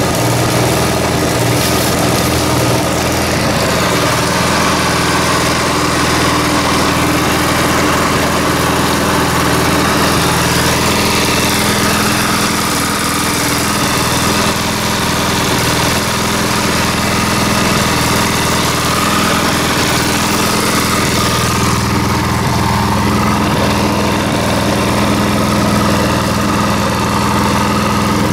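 Chinese clone of the Honda 200cc single-cylinder four-stroke engine running steadily at one speed, working with no issues.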